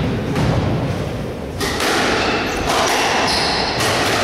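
Squash rally: a squash ball struck by rackets and thudding off the court walls several times, with shoes squeaking on the wooden court floor.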